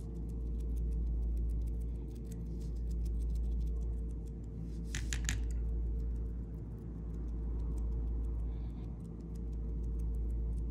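Faint repeated taps and dabs of a sponge dauber on a stick pressing paint onto a cut-out leaf, over a steady low hum; a brighter cluster of taps comes about halfway through.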